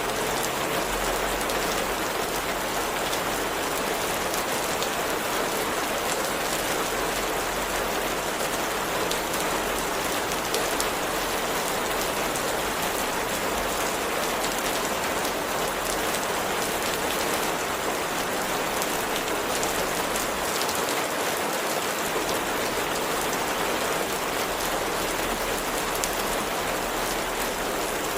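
Steady rain falling: an even hiss with a fine patter of drops throughout.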